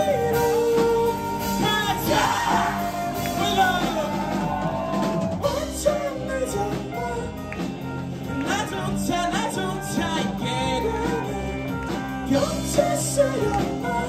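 Live rock band playing: electric guitars, bass guitar and drum kit, with a sung vocal line over them.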